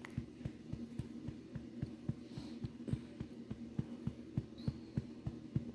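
Quick, even pats on a baby's back to bring up a burp, about six a second, over a steady low hum.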